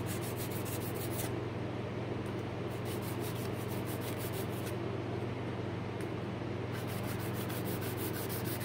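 Steel cabinet scraper's edge rubbed in quick back-and-forth scratchy strokes, about eight a second, across a sharpening surface held in a wooden jig. It goes in three spells with short pauses between them. A steady low hum runs underneath.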